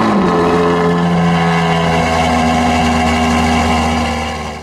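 A car engine revs briefly right at the start, then holds a steady, loud pitch, and cuts off abruptly at the end.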